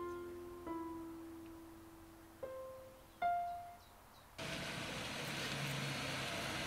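A few soft, single piano notes, each ringing out and fading. About four seconds in they give way abruptly to a steady outdoor hiss with a car approaching.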